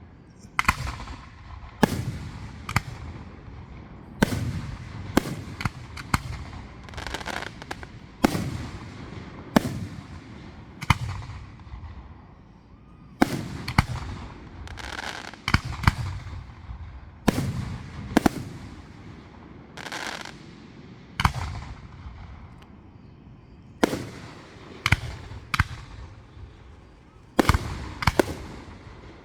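Fireworks display: a steady series of sharp bangs from aerial shells bursting, some coming in quick succession, each followed by a fading rumble and crackle.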